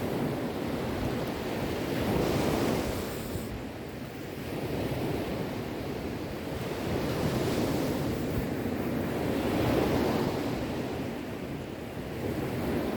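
Sea waves rushing and washing, the surf swelling and easing in slow surges every few seconds.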